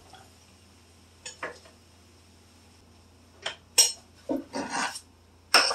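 Kitchen dishes and utensils clinking and scraping: a couple of light knocks about a second in, then a cluster of clatters and scrapes from about three and a half seconds, and a sharp knock near the end.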